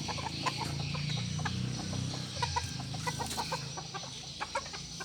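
Chickens clucking, many short scattered calls, over a low steady hum.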